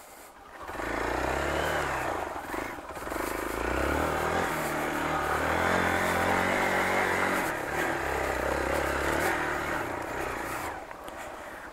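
Hero Xpulse 200 4V's single-cylinder four-stroke engine revving under load as the bike climbs a loose, sandy dirt track, easing off for a moment early on, then pulling steadily and dropping back near the end.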